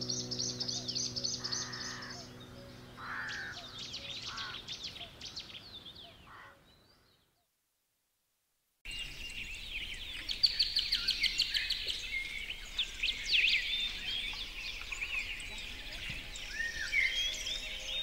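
Songbirds chirping and trilling over soft sustained music tones that fade out over the first few seconds. The sound dies away to silence about seven seconds in, then a dense chorus of quick bird chirps and trills starts abruptly about nine seconds in.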